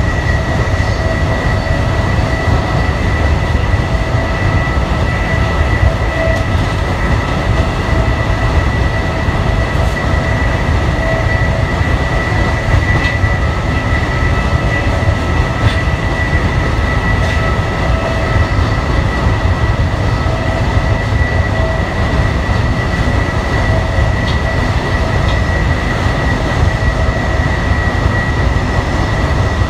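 Amtrak Northeast Regional passenger train running at speed, heard from inside its rear car: a steady, heavy rumble of wheels on rail with a constant high-pitched whine over it and a few faint clicks.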